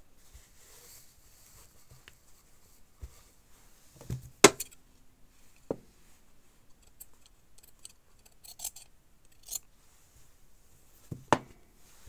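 Metal fabric scissors snipping cloth, with a few sharp metallic clicks; the loudest click comes about four and a half seconds in and another near the end, with a run of short snips in between.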